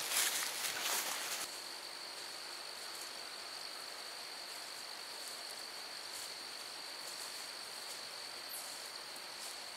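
Insects singing in woodland, a steady high-pitched drone over quiet outdoor ambience, with some louder rustling in the first second or so.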